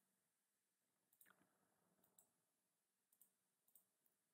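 Near silence, with a few faint computer mouse clicks.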